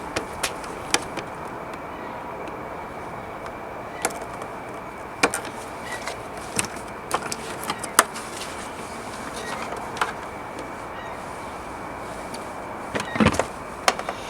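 Scattered sharp clicks and light knocks of plastic wiring-harness connectors and wires being handled at a car's tail light, over a steady background hiss.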